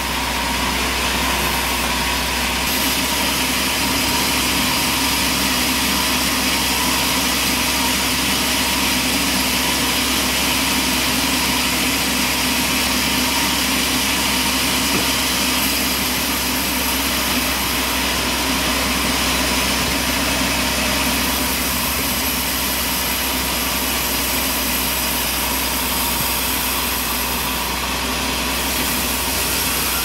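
Large vertical band sawmill running steadily, its blade sawing lengthwise through a log as the log is fed past on the carriage.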